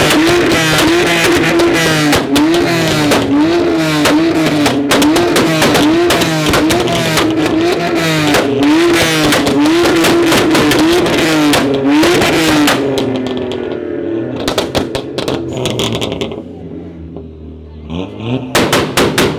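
Tuned sports car engine held high in the revs with a rapid string of exhaust bangs and crackles, its pitch wavering about once a second. About 13 seconds in it drops back to idle, then near the end it is revved up again with more pops.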